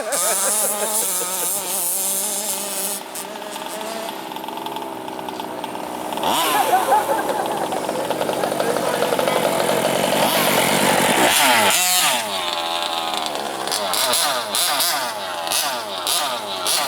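Small two-stroke petrol engine of a large-scale FG RC monster truck revving up and down. It climbs to a sustained high rev about six seconds in, drops sharply near twelve seconds, then runs on in short blips of throttle.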